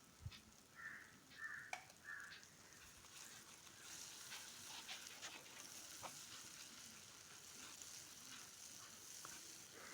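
Faint sizzling of a spiced masala paste frying in oil and butter in a kadai, with a few light clicks and scrapes of a spoon stirring it in the first few seconds.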